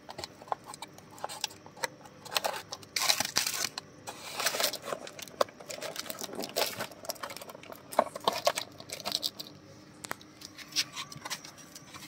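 Paper wrapping being torn off and crumpled from a cardboard fireworks box, in irregular rustling bursts with small clicks and knocks.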